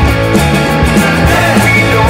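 Loud rock band recording with a punk or grunge edge: drums with regularly hit cymbals, bass and guitars playing.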